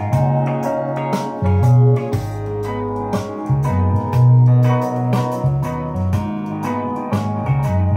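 Instrumental music with moving bass notes and a regular beat, played from a phone through a homemade one-channel discrete transistor amplifier into a speaker.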